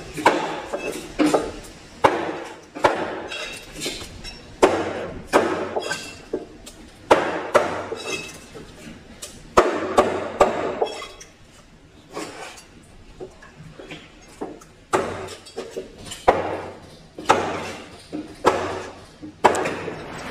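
Large knife chopping fish into chunks on a wooden cutting board: a run of sharp knocks, about one a second, some with a short metallic ring. The strokes go quieter for a couple of seconds past the middle, then pick up again.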